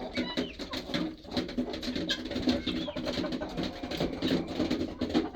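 Flock of chickens and guinea fowl clucking softly and continuously at feeding time, a low, warbling murmur broken by many small clicks.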